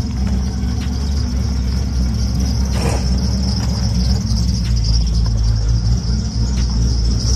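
Insects buzzing steadily in a high, even band over a loud steady low drone of machinery, with a short knock or rattle about three seconds in.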